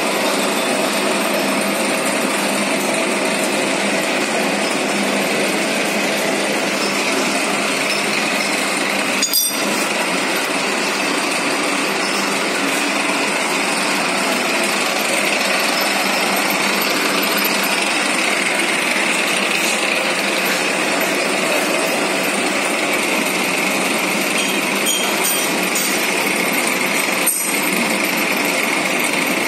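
Plano milling machine running steadily while machining T-slots in a cast-iron bed, a loud, even mechanical noise. Two sharp clicks stand out, one about nine seconds in and one near the end.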